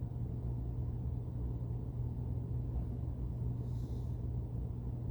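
Steady low hum with a rumble beneath it, unchanging throughout, and a brief faint hiss about four seconds in.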